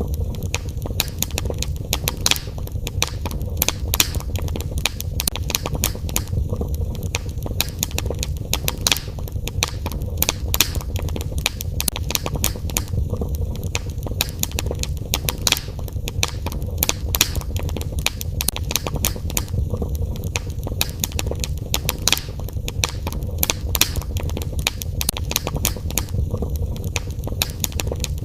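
Wood fire burning in a fireplace: frequent irregular sharp crackles and pops, several a second, over a steady low rumble.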